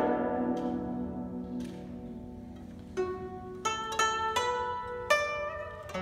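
Solo guzheng: the notes of a downward sweep across the strings ring on and fade. Then four single plucked notes follow about a second apart.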